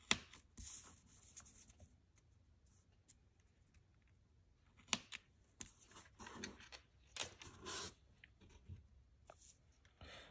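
Quiet clicks and short scrapes of a straight-edge razor blade cutting thin wooden strips on a paper template, and of the cut pieces being handled and set down, with a few sharp clicks spaced through the stretch.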